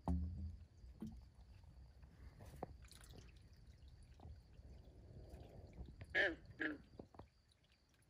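Night pond ambience: a faint, steady high-pitched insect trill, with a dull low thump at the start and two short pitched chirps a little after six seconds in.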